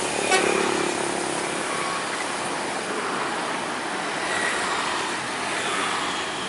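Roadside traffic passing: an intercity coach, a tank truck and motorcycles, making a steady, even rush of engines and tyres.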